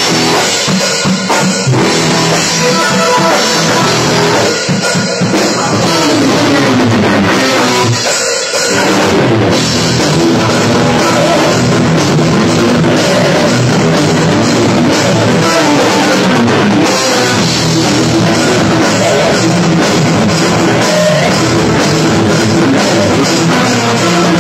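Rock band playing an instrumental passage with no singing: drum kit, two guitars, bass and keyboard, loud and dense throughout, with a few short breaks in the first nine seconds.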